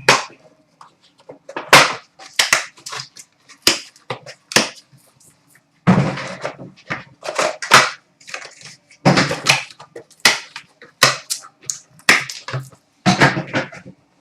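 Hockey card box packaging being unwrapped and opened by hand: an irregular run of sharp crinkles, rips and light knocks, with a longer tearing rasp about six seconds in.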